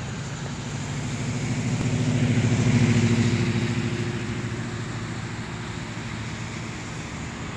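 A car drives past on the wet road: its engine and the hiss of its tyres on the wet pavement rise, are loudest about three seconds in, then fade away.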